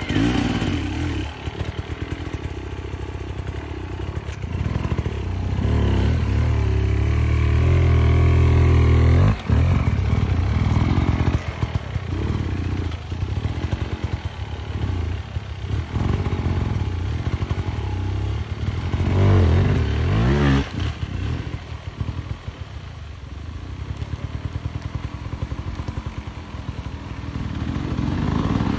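Enduro dirt-bike engine under hard, uneven throttle as it claws up a steep, muddy climb: held at high revs for a few seconds about a fifth of the way in, then cut sharply, followed by repeated short throttle blips and a rising-and-falling rev burst around two thirds of the way in.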